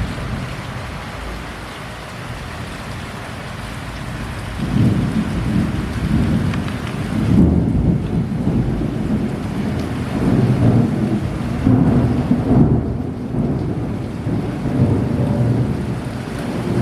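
Heavy rain falling steadily, joined about four and a half seconds in by a long, low rumble of thunder that swells and fades in waves.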